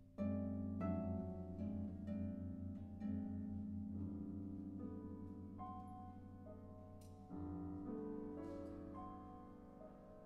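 Live chamber ensemble playing slow contemporary classical music: a series of plucked harp notes that ring and fade over sustained low notes, with a new chord coming in about seven seconds in.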